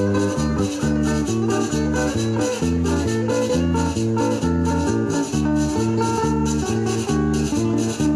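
Instrumental break in a Spanish-language song: plucked guitars and bass over a steady, even maraca rhythm.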